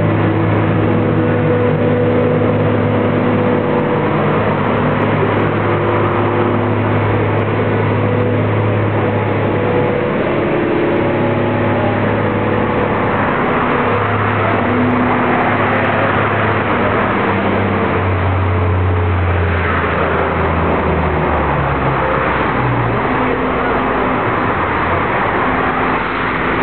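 A heavy engine running steadily, its note stepping down in pitch about 20 seconds in.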